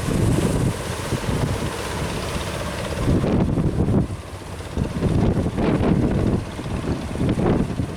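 Strong wind buffeting the microphone in uneven gusts, a loud low rumble that swells and drops every second or so.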